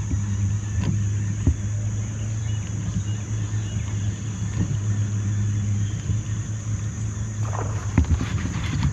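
Small electric kayak motor running steadily, a low hum with a faint high whine, with a few sharp knocks.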